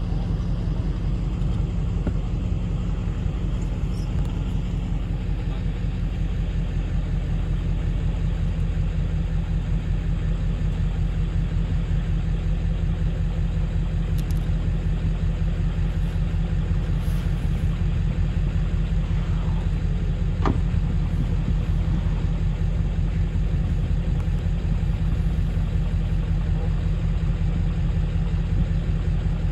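Boat's engine running steadily, a low, even drone.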